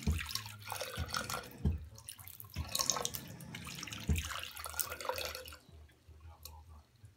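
A thin stream from a motion-sensing bathroom faucet runs into the sink, splashing unevenly as a cat drinks from it, with a few dull knocks. The water sound dies down about five and a half seconds in.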